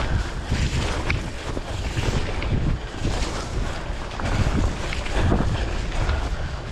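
Wind buffeting the microphone of a bike-mounted camera while riding, a steady low rumble that swells and dips, over the Panaracer Gravel King SK gravel tyres rolling through wet mud with scattered short splashes and knocks.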